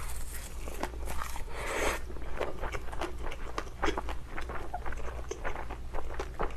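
Close-miked chewing of a mouthful of spicy stir-fried glass noodles with minced pork and rice: many short wet clicks and smacks of the mouth. A hiss of breath or stirring fills the first two seconds.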